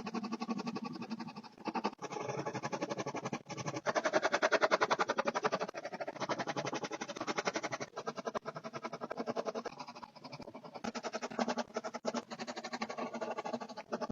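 Graphite pencil scratching on paper in rapid back-and-forth shading strokes, with short pauses every two seconds or so.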